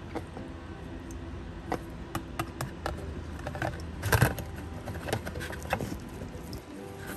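Light clicks and knocks of a plastic catch container being handled and fitted up around a car's oil filter, with a louder clatter about four seconds in, over a low steady hum.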